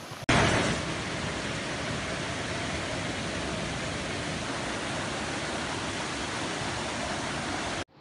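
Steady rush of muddy floodwater pouring through a swollen river, starting abruptly and cutting off suddenly near the end.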